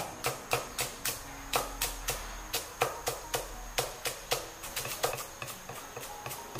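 Chinese cleaver mincing garlic and ginger on a round end-grain wooden chopping block: a steady run of sharp knocks, about three a second.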